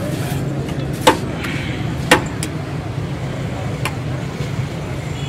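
Steady hum of street traffic, with sharp clinks of a ceramic plate knocking against the metal cooking pot as pulao is scooped out, the two loudest about one and two seconds in and two fainter ones after.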